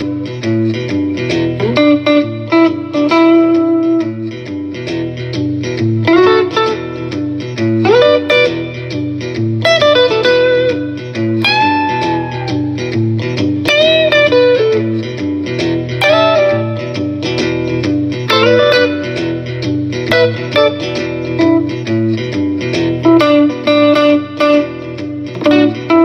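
G&L Legacy electric guitar, its single-coil pickups heard through an amp, playing a lead line of picked notes, with bent and wavering held notes about halfway through.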